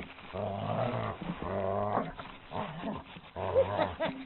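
Dog growling in several short bursts while it grips and hangs from a rope tire swing: a tugging play growl.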